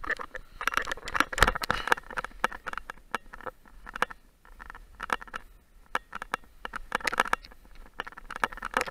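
Hiking boots crunching and scraping in firm snow during a descent, as irregular clusters of crunches with short quieter gaps.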